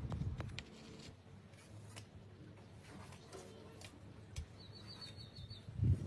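Thin knife blade drawn through soft khaman dhokla in a stainless steel plate, with light scraping and faint clicks of the tip against the steel. A dull thump near the end.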